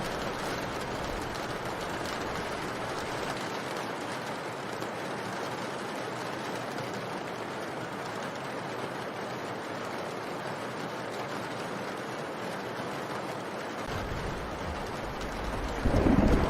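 Steady rain, an even, dense hiss. A louder low rumble builds near the end.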